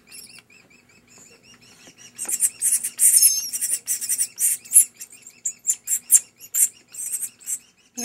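Nestling bird's begging calls while it is hand-fed with tweezers: rapid, repeated high-pitched chirps, faint at first and much louder from about two seconds in.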